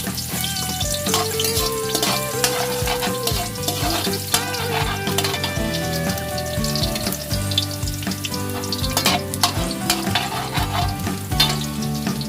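Ginger frying in hot oil in a wok, with a steady sizzle and frequent short knocks and scrapes of a utensil stirring it against the pan.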